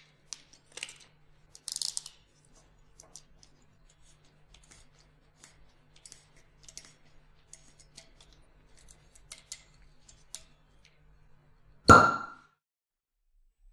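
Faint scattered clicks and clinks, then about twelve seconds in a wine glass gives one loud, bright clink that rings out briefly.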